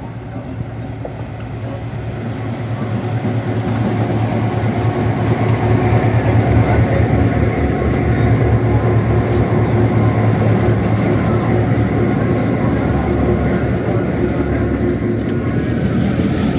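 An EMD diesel-electric locomotive's engine running close by. It grows louder over the first few seconds as it draws near, then holds a steady low drone.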